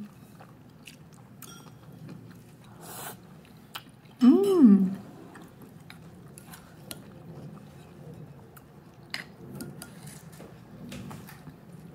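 Plastic fork clicking and scraping against a ceramic bowl while eating, with chewing sounds. About four seconds in, a short hummed sound from the eater rises and falls in pitch.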